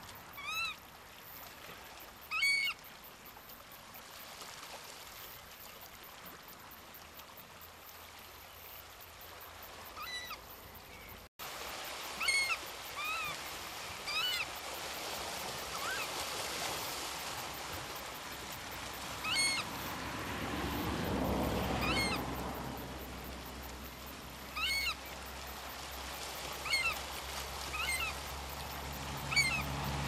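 Variable oystercatchers peeping: short, thin, arched high notes repeated every second or two, over the steady rush of running water.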